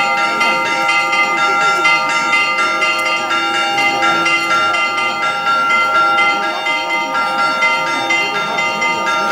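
Church bells ringing a festive peal, several bells of different pitch struck again and again so their tones overlap and ring on, the Orthodox bell-ringing that accompanies a saint's litany.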